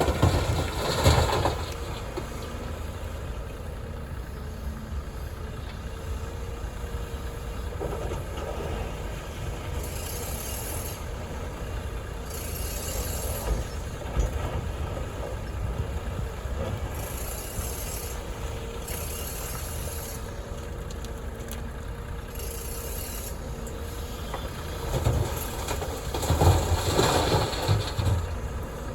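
Heavy diesel construction machinery running steadily: a CAT 330F excavator working beside dump trucks. Loud, rough surges of noise come about a second in and again near the end, with short high hisses in between.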